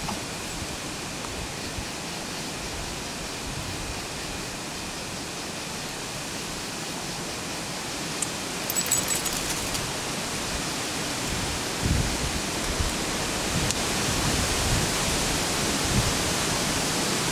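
Steady rushing storm noise, growing somewhat louder over the second half, with a brief high rattle about nine seconds in and a few low bumps near the end.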